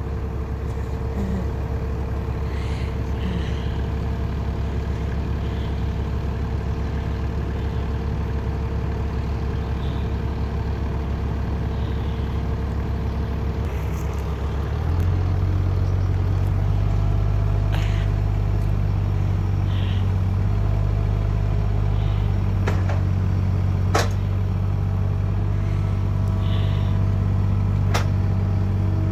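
Diesel engine of a Kubota hydraulic digger running steadily, stepping up louder about halfway through as the boom and bucket push against a heavy load. A few sharp metal clanks in the second half.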